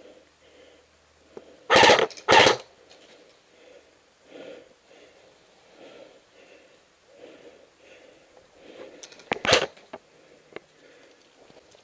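Heavy, rhythmic breathing, about one soft breath every second or less, with three short, loud bursts of noise: two close together about two seconds in and one near the end.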